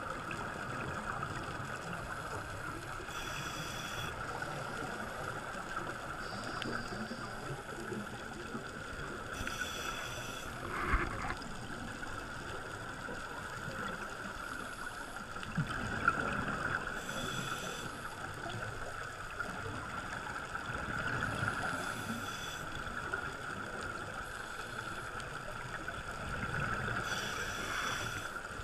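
Scuba diver's regulator breathing heard underwater: a rush of exhaled bubbles about every six seconds, over a steady hum.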